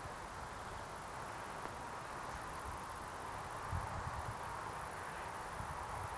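Outdoor ambience of crickets chirring steadily in the grass, a thin high even tone over a soft steady hiss, with light wind buffets on the microphone.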